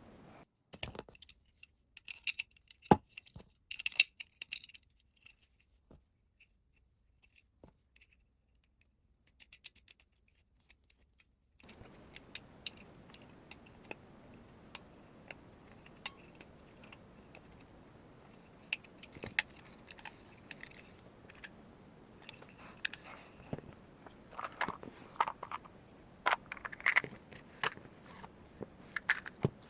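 Clicks, taps and scrapes of small metal parts of an airsoft gas-blowback rifle being handled and fitted together. They come in scattered clusters, with a long quiet stretch in the first half and a busier run of clatter near the end.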